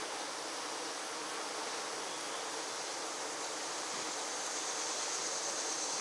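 Honey bees buzzing steadily at the hive entrance, fanning their wings to ventilate and cool the hive in hot weather.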